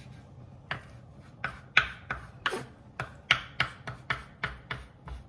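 Kitchen knife chopping fresh parsley on a wooden cutting board: a run of sharp knocks of the blade on the board, about three a second, starting under a second in.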